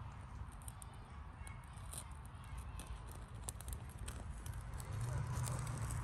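Faint crackling of fibrous tinder catching fire inside a small metal twig stove: scattered light clicks over a low rumble that grows louder near the end.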